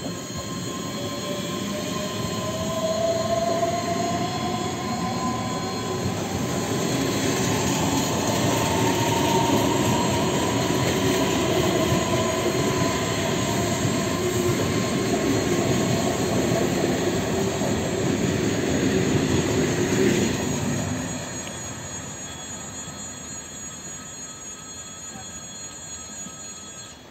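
EG2Tv Ivolga electric train passing close by and accelerating: a heavy rumble of wheels on rail, with the traction motors' whine rising steadily in pitch. The noise drops off about two-thirds of the way through as the last car goes by, then fades away.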